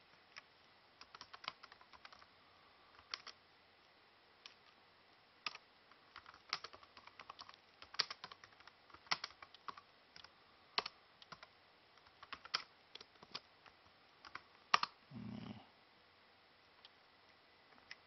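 Typing on a laptop keyboard: irregular key clicks in short runs for about fifteen seconds, then a brief low sound and a few faint ticks near the end.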